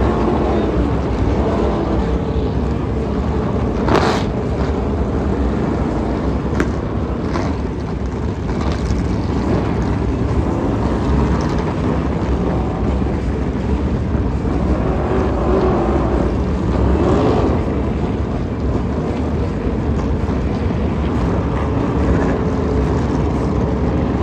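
NASCAR stock cars' V8 engines running, a loud continuous drone with pitch that swells and falls around the middle as cars go by, and a sharp click about four seconds in.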